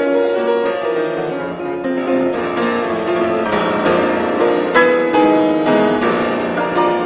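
Instrumental background music with piano, a melody of held notes changing every half second or so over sustained chords.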